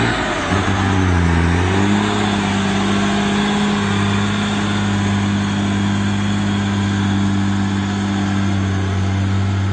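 Turbocharged diesel engine of a Ford truck running hard with a deep, steady drone. Its pitch dips briefly and comes back up about a second in, then holds steady.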